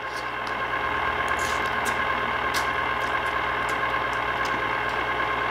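Small electric cheese-sauce fountain running: a steady motor hum, with a few faint clicks now and then.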